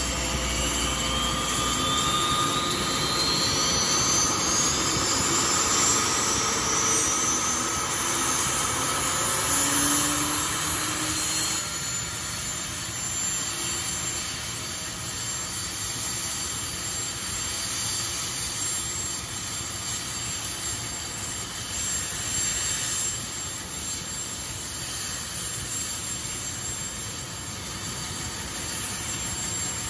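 Boeing CH-47D Chinook's turboshaft engines spooling up: a turbine whine climbs steadily in pitch over the first ten seconds or so, then levels off into a steady whine and rumble as the engines settle at speed with the rotors turning.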